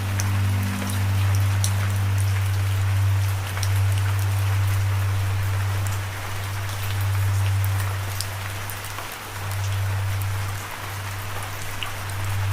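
Steady rain with scattered individual drops ticking, under a sustained low musical drone that swells and fades every few seconds.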